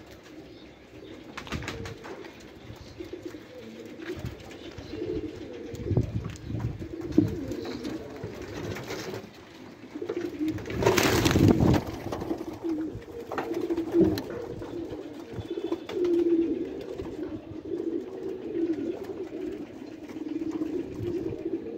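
A group of Bangladeshi Golla pigeons cooing continuously in low, warbling coos. About halfway through there is a brief loud rush of noise.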